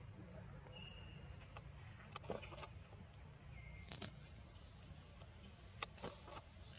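Faint outdoor ambience: a steady high insect drone, with a few soft clicks and a couple of brief thin chirps.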